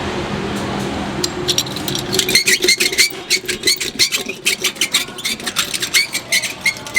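Rapid metallic clinking: metal striking metal several times a second, each strike ringing briefly. A steady low machine hum underneath cuts out about two and a half seconds in.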